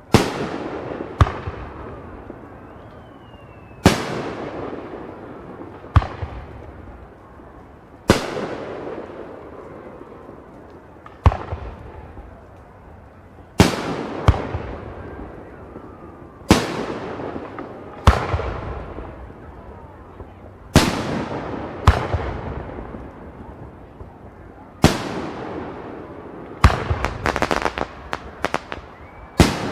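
Fireworks bursting: a sharp bang every two to three seconds, each trailing off in a fading crackle, with a quick run of crackling pops near the end.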